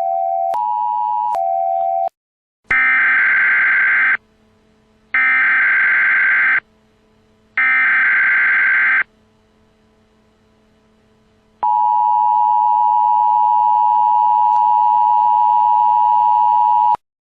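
Emergency Alert System tones. Two steady tones alternate high and low for the first couple of seconds. Then come three screechy bursts of SAME digital header data. Last, the steady two-tone EAS attention signal sounds for about five seconds and cuts off suddenly.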